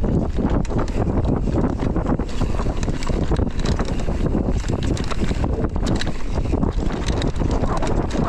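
Wind buffeting the microphone, with a dense run of small rattles and knocks, as of a mountain bike ridden over rough trail.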